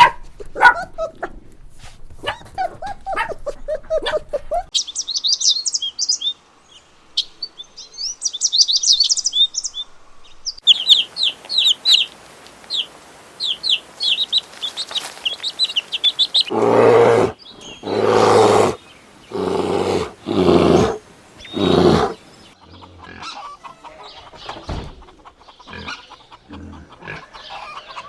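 Birds chirping in quick, high, repeated notes in two stretches, followed by about five loud, separate animal calls roughly a second apart.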